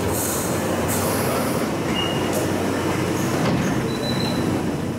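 London Underground tube train slowing to a stop alongside the platform, with a steady rumble. There is a burst of air hiss near the start and two short, high brake squeals later on.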